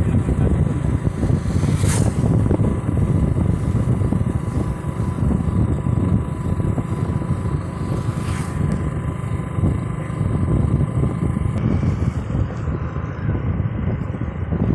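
Wind buffeting the microphone on a moving motorcycle, with the motorcycle's engine running steadily underneath and a faint steady whine. Two brief sharp clicks, about two seconds in and again near the middle.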